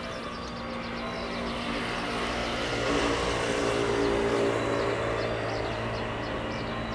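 JR West 115-series electric train approaching. Its running rumble and motor hum swell to a peak about three to four seconds in, then ease off slightly.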